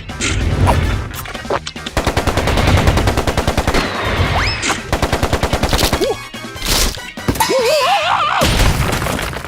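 Cartoon sound effects: a fast, even run of sharp bangs like machine-gun fire, breaking off about four and a half seconds in and briefly starting again. It is followed by a wavering, warbling squeal near the end.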